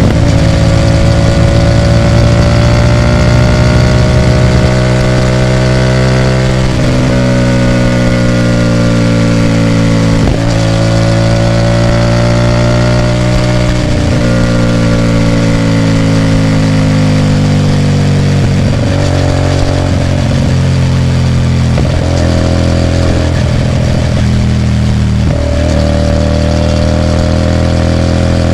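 Hyosung GT250R's 250cc V-twin running loud through an aftermarket Ixxile Racing exhaust while being ridden. The engine note rises and falls slowly with the throttle, broken by half a dozen sudden dips.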